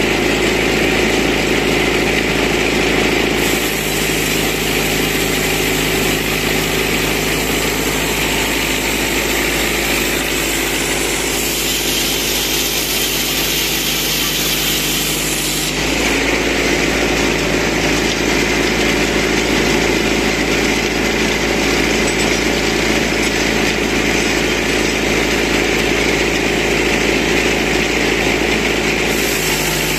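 Tractor engine running steadily, driving a mobile band sawmill, with the band saw cutting through a thick log. The tone shifts a few times, about four seconds in and again about midway.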